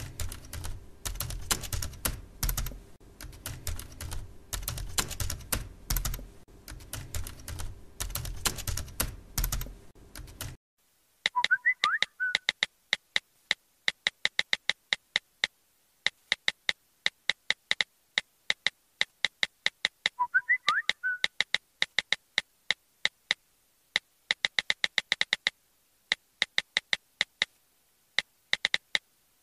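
Keyboard typing, with a steady run of key clicks for about ten seconds. After a sudden cut, a cleaner, sharper set of typing clicks comes in quick bursts with pauses. It is broken twice by a short warbling tone.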